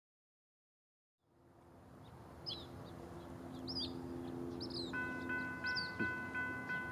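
A second of silence, then outdoor ambience fades in: a bird chirping in short repeated calls over a low steady hum. About five seconds in, a railroad grade-crossing warning bell starts ringing in rapid, evenly spaced dings, the signal that a train is approaching.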